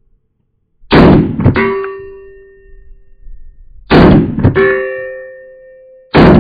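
S&W Bodyguard 2.0 .380 pistol firing three shots about three seconds apart, the last near the end, each followed by the ringing clang of a hit on a steel target.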